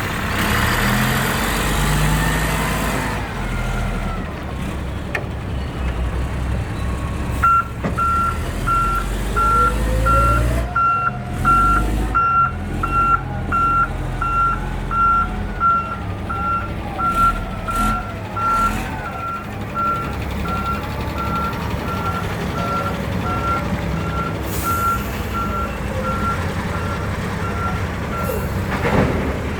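Heavy diesel earthmoving machinery running, with a reversing or travel alarm beeping at an even pace from about seven seconds in until near the end. The engine revs up briefly about ten seconds in.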